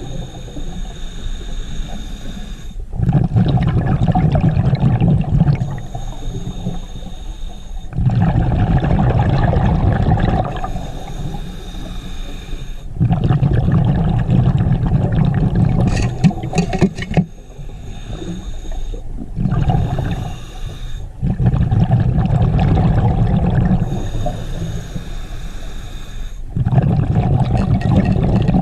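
Scuba diver breathing underwater through a regulator: a hissing inhale with a faint high whistle, then a loud rumbling gush of exhaled bubbles, in a slow steady cycle about every five seconds, roughly six breaths.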